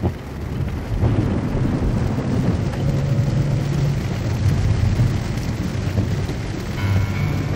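Heavy rain drumming on a car's roof and windshield, heard from inside the cabin, with a low steady hum underneath.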